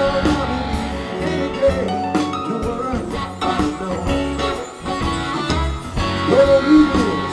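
Live band playing a song, electric guitars up front over drums, keyboard and congas.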